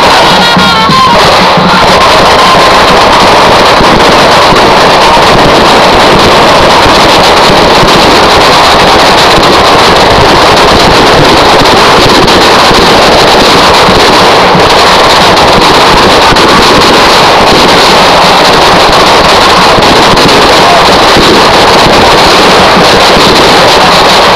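Fireworks set off on the ground, giving a continuous dense crackle with no pauses. It is so loud that the recording is overloaded and distorted.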